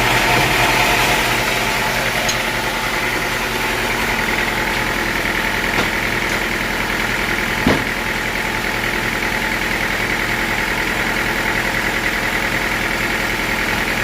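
Sawmill engine running steadily at a low, idle-like speed, with a single sharp knock about halfway through.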